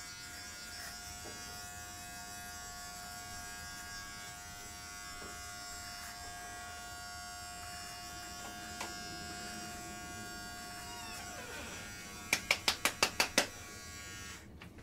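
Philips Norelco Multigroom 7000 trimmer running with a steady electric buzz as it is drawn over a scalp, shaving the head. Near the end comes a quick run of about eight sharp taps, then the motor cuts off.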